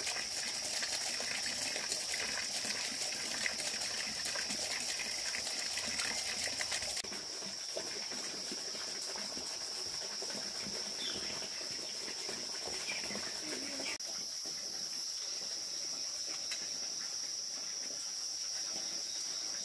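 A steady, high-pitched chorus of night insects, such as crickets, over a light background hiss. The background shifts abruptly twice, about seven and fourteen seconds in.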